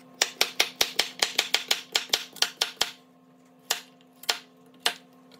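Chef's knife chopping carrots on a wooden cutting board: a quick run of about fifteen chops, about five a second, for nearly three seconds, then three slower single chops. A faint steady hum lies beneath.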